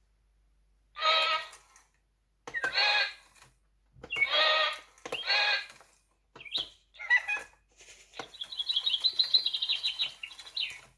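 Sound-activated toy Eastern Rosella playing recorded bird calls through its speaker. Five separate calls come first, then a rapid chattering run of high notes lasting a couple of seconds near the end.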